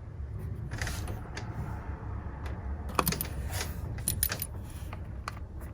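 Small metal hand tools clinking and rattling as they are handled: a scatter of light clicks and clinks, busiest from about three seconds in.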